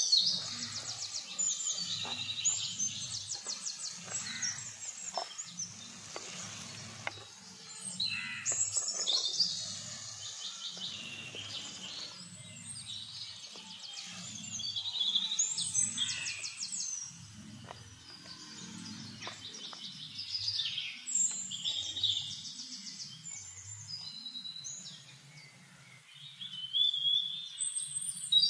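Several songbirds singing, with rapid trills and repeated chirps overlapping throughout, loudest around 9, 16 and 28 seconds in.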